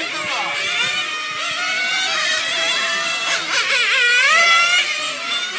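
Several nitro radio-controlled touring cars lapping, their small glow-plug engines running at high revs in overlapping, high-pitched whines that rise and fall as the cars brake and accelerate. One engine dips and then climbs sharply about three and a half seconds in.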